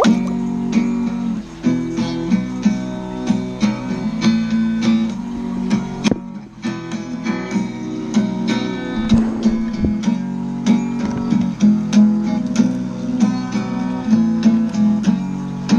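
Background music: strummed and plucked acoustic guitar, country-style, with steady picked notes and a brief drop about six seconds in.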